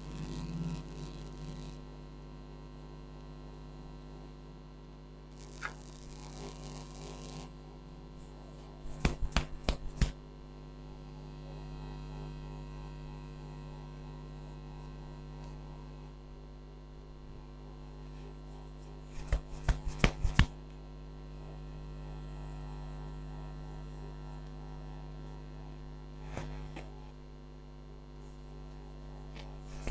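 Steady electrical mains hum, broken twice by a quick run of sharp slaps lasting about a second, the rapid tapping strokes of a head massage.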